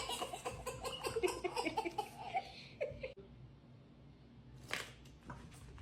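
Playing cards being shuffled, a crackly riffling, with a person giggling over it for about the first three seconds; one short, sharp burst of riffling comes about two thirds of the way through.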